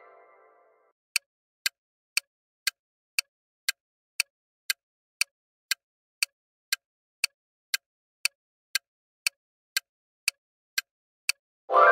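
Quiz countdown-timer sound effect: a clock ticking evenly, two ticks a second, for about ten seconds. The tail of an answer-reveal chime fades out at the start, and the next answer-reveal chime begins right at the end.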